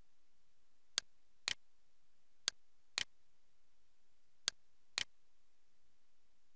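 Computer mouse clicking: three pairs of short, sharp clicks, the two clicks of each pair half a second apart, the first crisp and the second a little duller.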